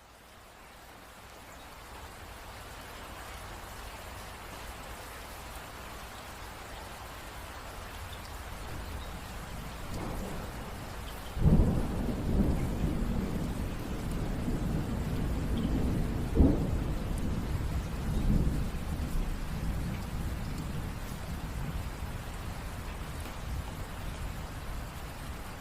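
Steady rain falling, fading in at the start. About eleven seconds in a sudden thunderclap breaks into rolling rumbles, with another sharp crack a few seconds later, then the thunder dies away under the rain.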